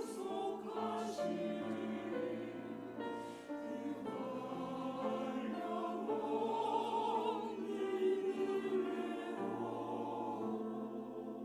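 Church choir singing a hymn, many voices holding long notes over accompaniment.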